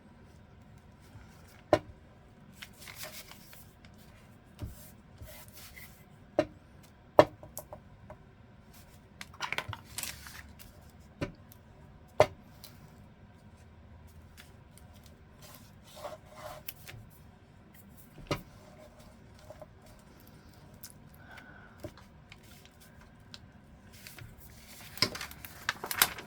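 Paper being handled at a craft table: short bouts of paper rustling and sliding, with scattered sharp taps of small tools and objects being set down.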